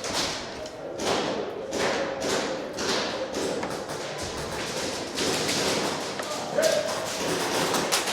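An irregular run of thumps and sharp swishing noises, one or two a second.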